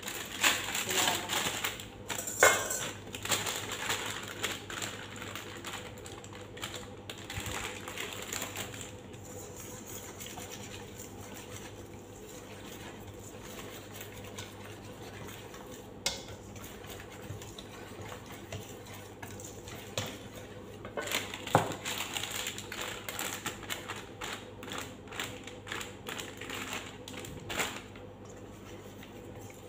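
Wire whisk beating a flour-and-water batter in a stainless steel bowl: a fast, continuous rattle of wire against metal, with a few louder knocks against the bowl.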